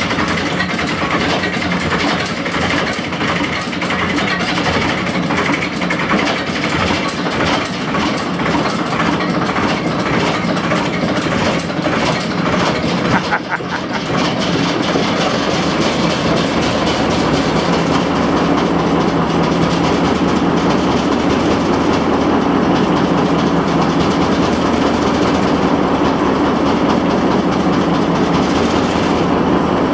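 Large Peter Brotherhood multi-cylinder stationary engine running with a loud, fast, steady clatter, freshly started. It dips briefly about 13 seconds in, then settles into steadier running.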